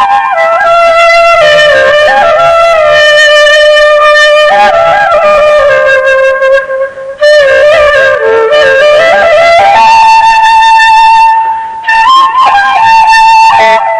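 Music: a single wind instrument playing a decorated melody line, with short breaks about seven and twelve seconds in.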